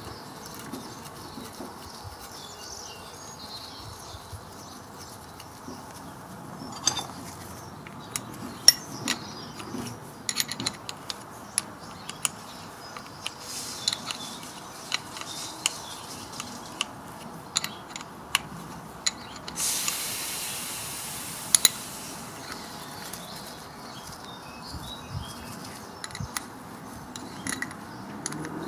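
Irregular small metallic clicks and clinks of hand tools and parts against a motorcycle's front brake caliper as it is reassembled, with a brief hiss about two-thirds of the way through.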